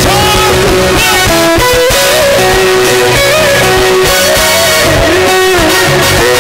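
Loud worship music led by electric guitar, its melody notes held and sliding between pitches over a bass line.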